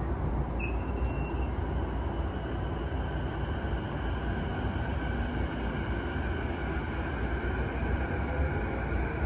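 Running noise of a JR East E233-0 series electric train heard from inside the car: a steady deep rumble, with thin high whining tones that come in about half a second in and slowly slide lower.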